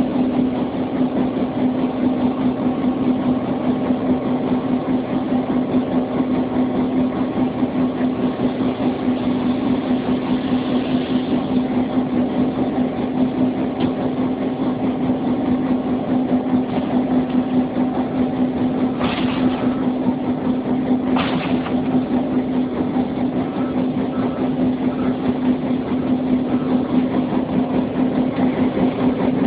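EMD G16 (class 661 'Kennedy') diesel locomotive idling steadily, its two-stroke V16 engine giving a constant deep drone. Two brief sharp noises stand out about two seconds apart, roughly two-thirds of the way through.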